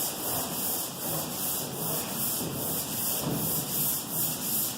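Long-board sanding block with sandpaper rubbed over primer on a pickup bed, a scratchy hiss that swells and fades with each back-and-forth stroke.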